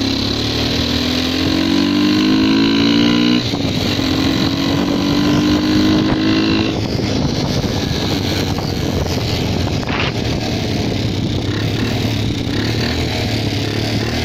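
Yamasaki Sky 72cc moped engine running under way, its note rising in pitch for the first three seconds, breaking off briefly, then holding steady. About seven seconds in the engine note gives way to an even rushing noise.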